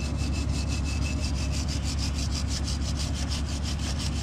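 Wire brush scrubbed by hand against the metal around the water-pump mounting on a DD15 diesel engine, in rapid even strokes of about eight a second, cleaning the surface. A steady low hum lies underneath.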